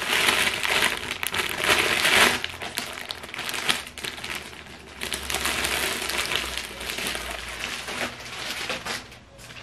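Clear plastic poly bag crinkling and rustling as a backpack is pulled out of it, loudest in the first couple of seconds and quieter near the end.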